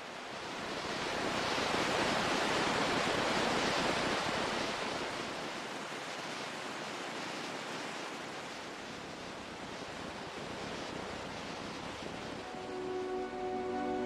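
Ocean surf rushing, one wave surging up loudest a second or two in and then easing back to a steady wash. Soft music with held tones comes in near the end.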